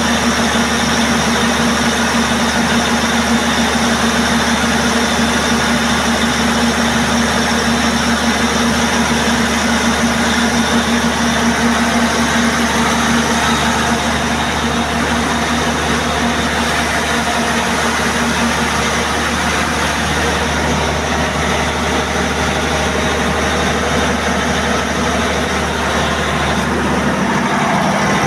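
Perkins 2306 turbocharged six-cylinder diesel generator engine running steadily: a loud, even drone with a constant hum.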